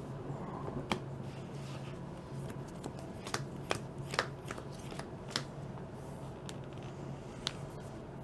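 Trading cards being shuffled and handled on a tabletop: scattered light clicks and taps of cards, over a steady low hum.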